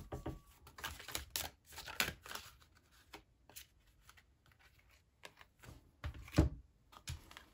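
A tarot deck being shuffled by hand: a quick run of card flicks and rustles for the first couple of seconds, then a few soft card clicks. About six seconds in there is one louder tap as cards are set down on the wooden table.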